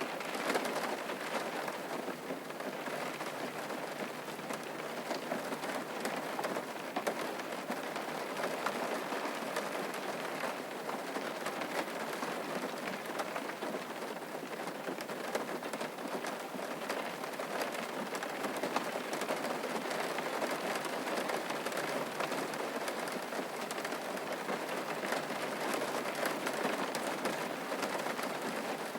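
Steady rain falling and pattering on a surface, with many small drop ticks and no let-up.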